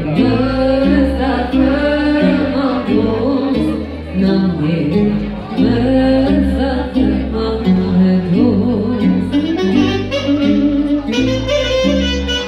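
Live band music: a woman sings into a microphone over a keyboard backing with a steady bass line, and a saxophone takes over the melody near the end.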